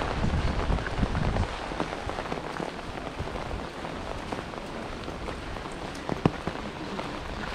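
Steady rain falling, an even hiss of drops, with some low rumbling in the first second and a half and one sharp knock a little after six seconds in.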